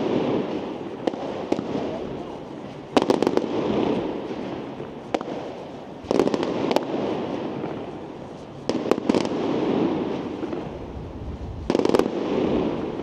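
Fireworks display: aerial fireworks bursting in volleys of sharp bangs about every three seconds, each volley trailing off in a rumbling echo and crackle, with a few single cracks in between.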